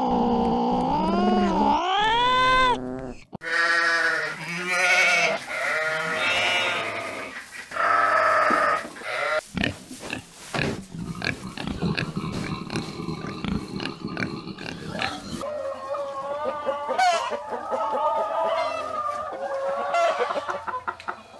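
A cat meowing in long rising-and-falling cries, cut off about three seconds in. Then pigs squealing and grunting. Near the end, a hen clucking with chicks peeping.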